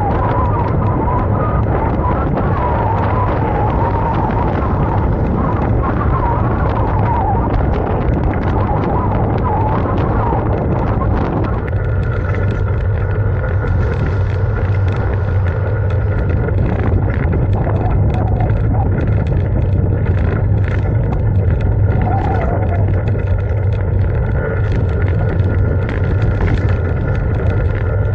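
Wind rushing over the microphone of a camera on a moving bike, with a steady low hum and road noise. The sound changes abruptly about eleven seconds in, where the footage cuts to a town street.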